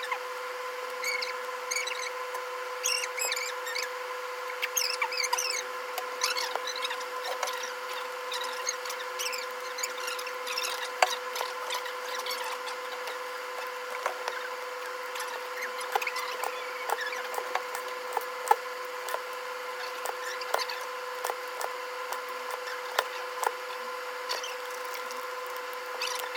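Small, sharp clicks and taps, typical of hand tools working on a phone, over a steady electrical hum. Quick high-pitched chirps come and go, mostly in the first several seconds.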